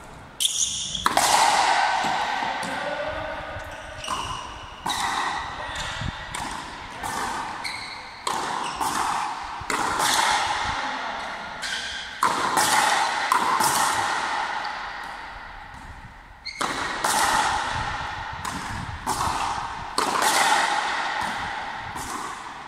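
Frontenis rally: a hard rubber ball cracking off the players' rackets and the front wall in quick irregular succession, each hit ringing on in the hall's echo. There is a brief lull about two-thirds of the way through before the hits start again.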